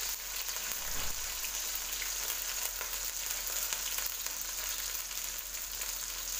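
Sliced onion, curry leaves and whole spices sizzling steadily in hot oil in a kadai.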